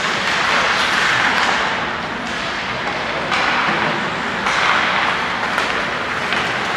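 Ice hockey play heard from the stands of an indoor rink: a steady hiss of skates on the ice mixed with crowd noise, with a few sharp clicks of sticks and puck.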